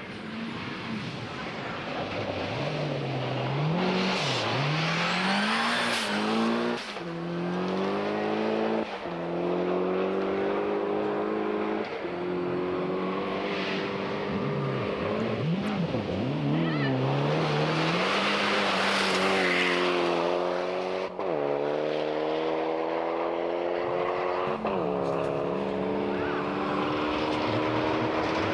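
Rally car engine driven hard on a gravel stage. The revs climb and drop back in steps as it shifts up through the gears several times, and twice they dip low and climb again.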